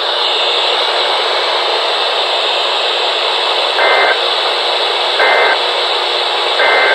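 Weather radio receiver hissing with static, and three short two-tone EAS/SAME digital data bursts about a second apart in the second half. The bursts are short enough to be the end-of-message (NNNN) signal that closes the Required Weekly Test.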